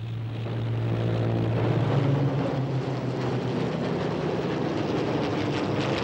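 Piston engine of a propeller-driven aircraft running steadily, a low drone over rushing noise that grows a little louder over the first second.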